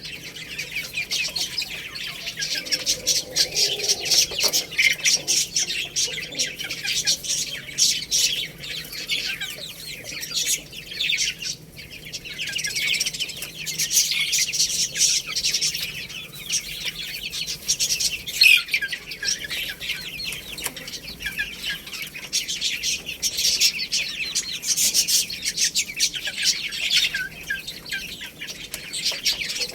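A brood of baby chicks cheeping constantly, with many short, high peeps overlapping.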